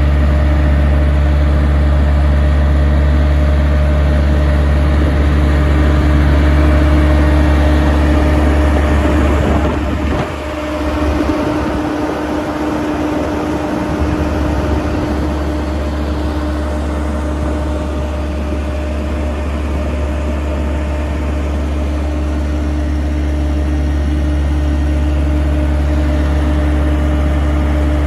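Diesel engine of an IMER Mover 270 D EVO screed conveyor running steadily: a deep hum with a constant tone above it. About ten seconds in, the deepest part of the hum drops away for a few seconds and then comes back.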